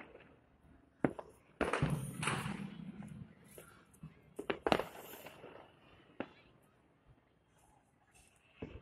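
Fireworks and firecrackers going off: a sharp bang about a second in, a burst of bangs and crackling over the next second or two, then a few more single bangs around the middle.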